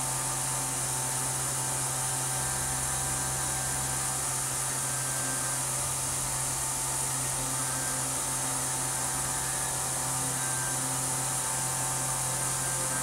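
Tormach CNC mill running a half-inch chamfer mill along the outside edge of an aluminium part, taking a light 10 thou chamfer cut under coolant. It is a steady, even hum under a constant hiss.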